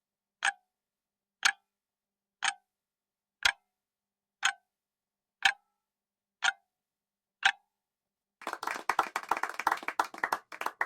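Countdown-timer sound effect: a clock ticking once a second, eight ticks, then about eight and a half seconds in a dense crackling rattle that lasts over two seconds.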